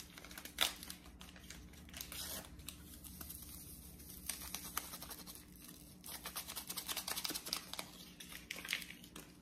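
Small paper seasoning packets being torn open and crinkled, a scatter of crackles and rustles that grows busier in the last few seconds.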